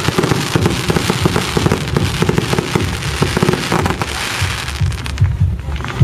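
Fireworks display with dense, rapid crackling bangs, thinning out near the end to a low rumble.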